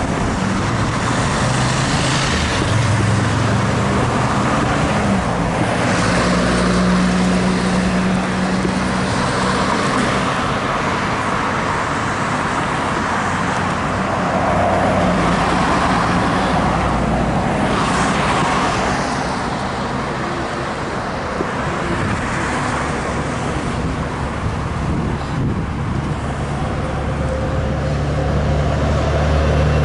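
Road traffic at a multi-lane intersection: a steady wash of car engines and tyres, with a few vehicles passing close. A deeper engine hum grows louder near the end.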